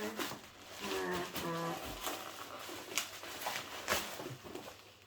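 Packaging being handled: rustling with a few sharp clicks and taps, the sharpest about three and four seconds in. A short pitched vocal sound comes about a second in.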